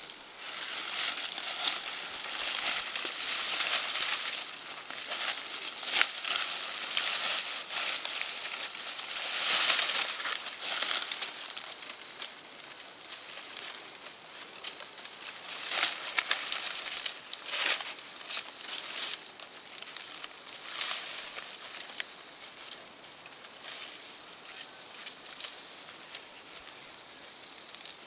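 Outdoor ambience: a steady high-pitched hiss with scattered short rustles and crackles.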